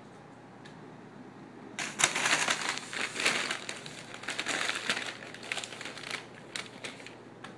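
A CVS bag crinkling and rustling loudly as a cat with its head inside it pushes it around on a wooden floor. The crinkling starts about two seconds in and comes in uneven bursts until shortly before the end.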